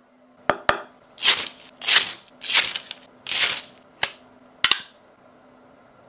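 Hands handling a clear acrylic display frame and its cardboard box. Two sharp clicks are followed by four short scraping swishes, then two more clicks near the end.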